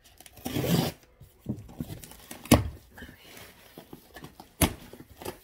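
A cardboard shipping box being opened with scissors: a rasping stretch of tape being slit about half a second in, then two sharp knocks, the louder one about halfway through and another near the end.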